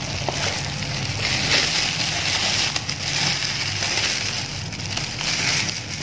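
Rustling and crinkling as hands handle a new hiking boot and its paper hang tag, coming in uneven swells with a few faint clicks.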